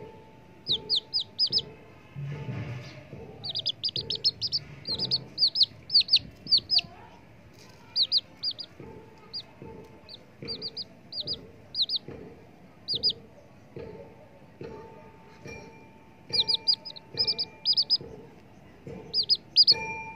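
Domestic baby chicks peeping: short, high, downward-sliding peeps in quick runs of three to five, repeated throughout.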